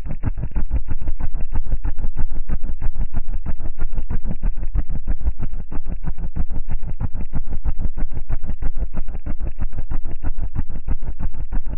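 Car audio subwoofers in a vehicle cab playing loud, deep bass, heard as a heavy low rumble that pulses in a rapid, even flutter.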